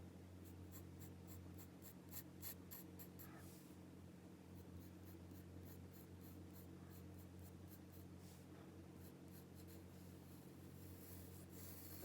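Faint graphite pencil scratching on paper in quick short strokes, busiest in the first few seconds and again near the end, over a steady low hum.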